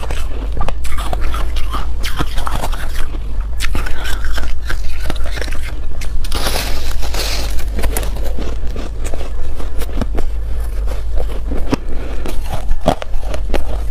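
Close-miked biting and chewing of crumbly foam ice: a run of crisp crunches and crackles, with a louder, denser crunch about six seconds in.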